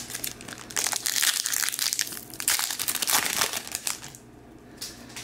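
The silvery foil wrapper of an O-Pee-Chee Platinum hockey card pack being torn open and crinkled by hand. A dense crackling runs for about four seconds, then stops.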